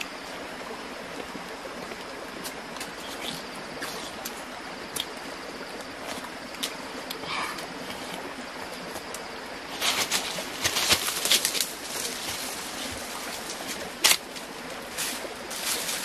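Dry leaf litter rustling and crackling as someone moves through it, in a dense spell about ten seconds in and again near the end, with one sharp snap in between, over a steady hiss.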